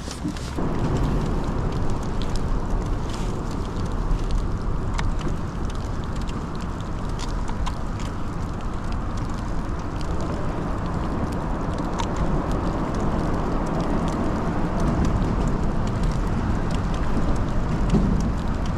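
Rain falling with wind on the microphone: a steady low noise, with scattered sharp ticks of raindrops striking nearby.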